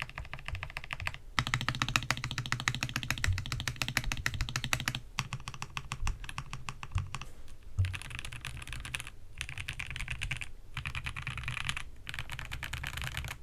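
Fast typing on a GMK67 mechanical keyboard with Gateron G Pro Yellow linear switches, its case foam-filled and tape-modded. A dense run of keystroke clicks comes in bursts separated by several short pauses.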